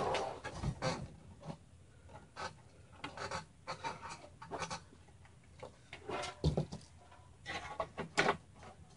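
Irregular rubbing, scraping and clicking of SATA cables and their plastic plugs being handled and forced into place inside a mini-ITX computer case, with several sharp clicks and knocks.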